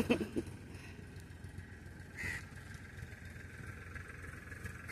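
Faint outdoor background: a steady low hum, with one short noise about two seconds in.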